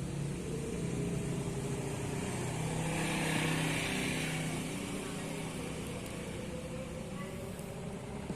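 A motor vehicle engine running steadily, swelling louder about three to four seconds in, as if passing by.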